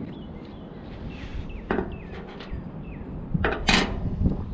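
Knocks and clatter of a wooden mounting bracket and steel bolt hardware being handled and set down on a shipping container's steel roof, with a single louder knock about three and a half seconds in.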